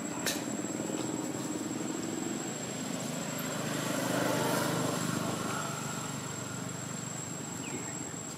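Motor scooter engines running as they pass along a road, growing louder around the middle and then fading, with a thin steady high tone above.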